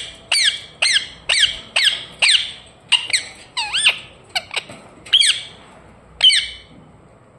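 Indian ringneck parakeet giving a rapid series of short, sharp squawks, each dropping in pitch, roughly two a second. The calls stop shortly before the end.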